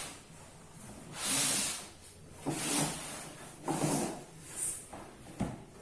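Cardboard and plastic packaging rustling and swishing in several short bursts as the bookcase boards are unpacked, with a single knock near the end.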